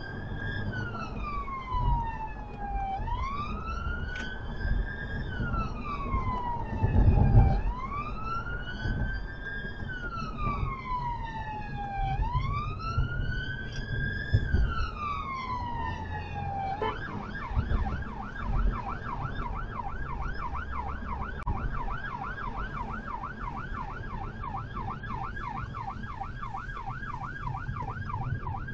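Electronic siren of an ambulance service response car, heard from inside the car over road noise: a slow wail rising and falling about every four seconds, then switching abruptly to a fast yelp of about three sweeps a second a little past halfway. A brief low thump about seven seconds in.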